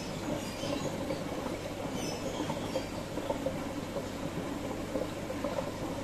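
Aquarium water flowing steadily, a continuous crackly bubbling and trickling.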